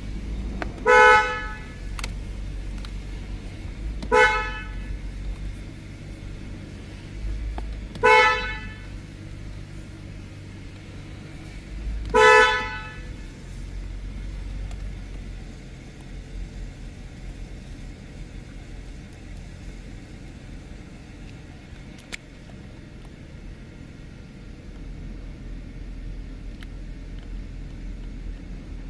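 BMW 7 Series (F01/F02) car horn sounded in four short honks about four seconds apart, with a low steady hum underneath.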